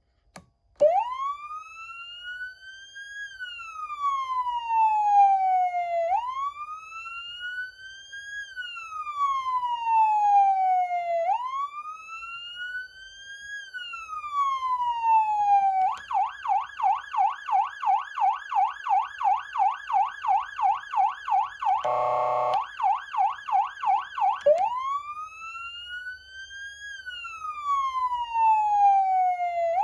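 Galls Street Thunder ST240 electronic siren amplifier sounding the wail tone, a slow rise and fall about every five seconds. After three cycles it switches to a fast yelp of about three sweeps a second, broken about two-thirds through by a short, lower, buzzing air-horn blast. It then goes back to the slow wail.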